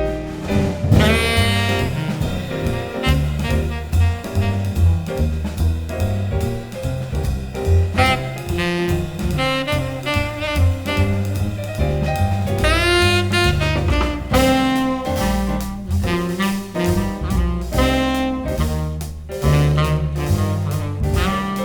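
Instrumental jazz: a saxophone playing the lead line over a prominent deep bass line, with drums coming in more strongly in the second half.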